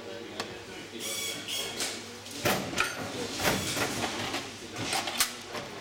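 Clear plastic packaging rustling and crinkling as chair parts are handled, with a series of sharp knocks and clatters of the parts being set down and moved.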